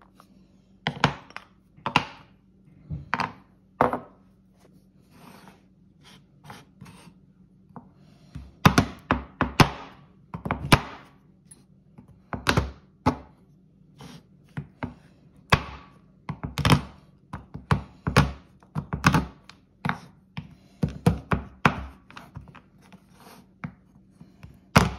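Chef's knife chopping bars of dark chocolate on a bamboo cutting board: irregular sharp knocks as the blade cracks through the chocolate and hits the board, often in quick runs of two or three.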